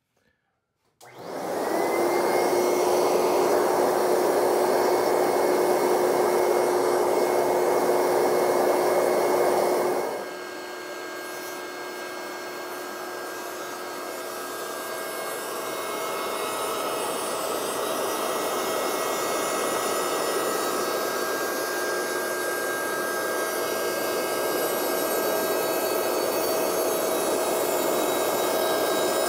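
A dust-collection vacuum on a CNC router's dust boot starts about a second in and runs as a loud, steady rush of air with a hum. About ten seconds in the noise drops, and a higher steady whine from the router spindle comes in and slowly grows louder.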